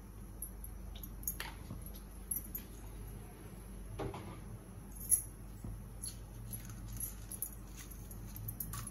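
Gas stove burner running under a pan of heating oil, a steady low hum, with scattered light clicks and clinks of kitchen utensils being handled.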